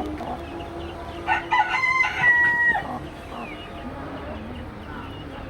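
A rooster crowing once, a single call about a second and a half long starting a little over a second in, held on a steady pitch before it breaks off.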